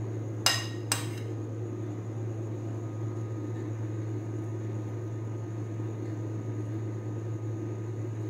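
A metal spoon clinks twice against a dish, two sharp ringing taps about half a second apart, over a steady low hum.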